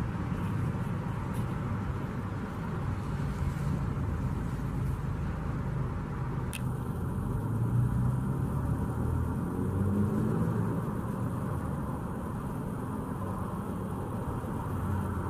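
Steady rumble of motor vehicles: road traffic running by near a roadside stop.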